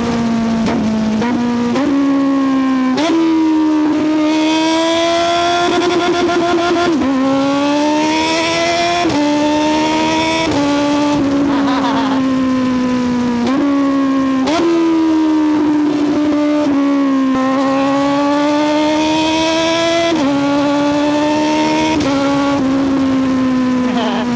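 Kawasaki Z900SE's 948cc inline-four engine under hard riding, its pitch climbing and then dropping sharply again and again, as with repeated revving up and gear changes.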